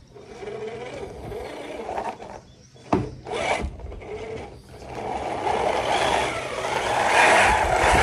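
Redcat Gen 9 RC crawler, fitted with a Hobbywing Fusion Pro motor, climbing a rough OSB wood ramp: the small electric motor whirs while the tyres scrub and rub on the board. There is a sharp knock about three seconds in, and the scraping grows louder toward the end.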